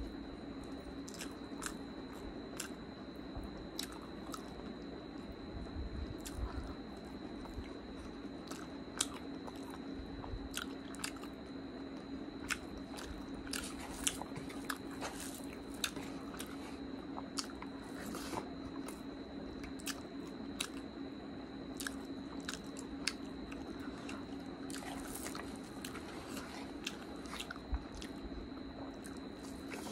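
Close-miked chewing of a mouthful of rice and curry eaten by hand: wet mouth sounds and lip smacks with frequent short sharp clicks, about one or two a second. A faint steady hum runs underneath.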